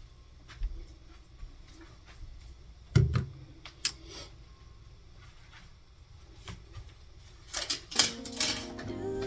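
Scattered light clicks and taps, with a louder knock about three seconds in and a quick run of clicks near the end. Background music comes in about eight seconds in.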